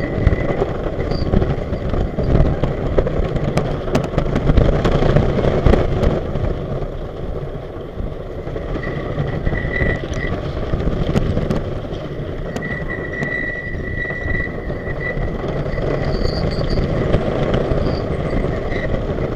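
Custom Coasters International wooden roller coaster train running at speed: a loud, dense rumble and clatter of the wheels over the wooden track, with sharp knocks from about two to six seconds in and a thin high tone that comes and goes in the second half.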